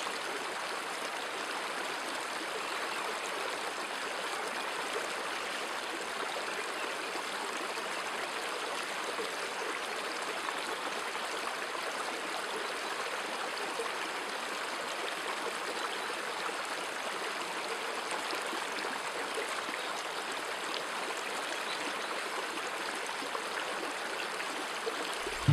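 Shallow stream running over rocks in small rapids: a steady rushing of water.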